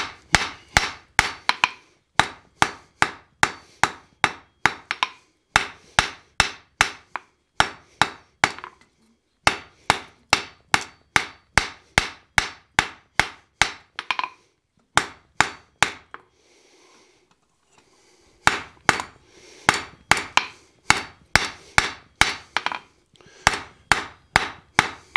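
Hand hammer striking a hot railroad spike on an anvil, drawing out and evening the taper of the hook's spike. Steady blows come about three a second, each ringing briefly, in runs broken by short pauses, the longest about two-thirds of the way through.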